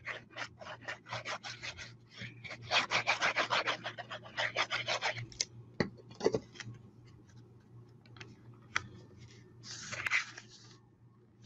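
Tape runner laying adhesive on cardstock: a quick run of short scratchy strokes, about four a second, for the first five seconds, with a few scattered strokes after. A short rub of paper on paper about ten seconds in.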